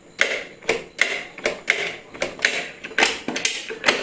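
Hand tools working on a small Honda motorcycle engine during disassembly: a run of sharp metallic clicks and knocks, about two or three a second.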